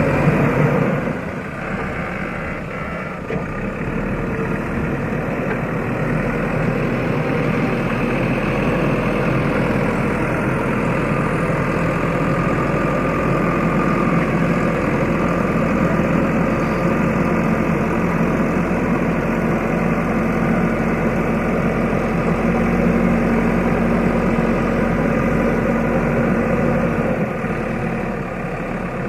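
JCB backhoe loader's diesel engine running steadily, with a slight dip in level about a second in.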